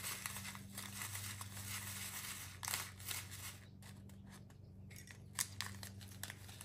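Small plastic bag of diamond painting drills crinkling and rustling as it is handled, with scattered small clicks and crackles. A faint steady electrical hum runs underneath.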